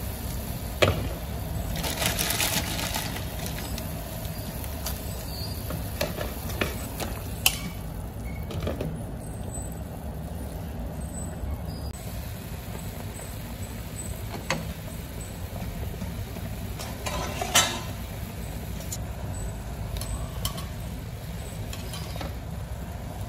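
Water boiling in a clay pot, a steady bubbling rumble, with a few sharp clinks of metal tongs against the pot and a short louder rush about two seconds in.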